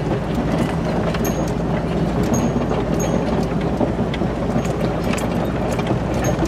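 Jeep driving slowly up a rocky dirt trail, heard from inside: the engine runs steadily under the noise of the tyres on gravel, with scattered light rattles and clicks from the vehicle over the bumps.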